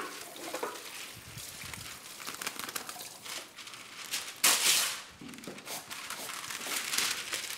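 Matlou' flatbread cooking on a hot griddle: irregular crackling, with a short loud hiss about four and a half seconds in.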